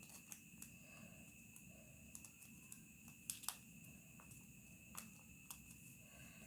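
Near silence with a few faint, short ticks and rustles of origami paper being handled and folded, over a steady faint high-pitched tone.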